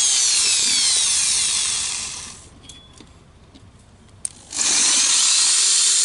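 Corded electric drill boring into the pressed-steel housing of a washing machine spin-dryer motor, drilling out the fastened joints to open the casing. It runs for about two seconds, stops, and starts again about four and a half seconds in.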